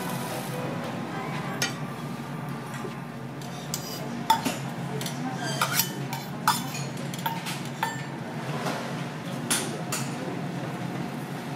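Scattered sharp clinks and taps of metal cooking tools on a steel teppanyaki griddle, a dozen or so spread irregularly, over a steady low background noise.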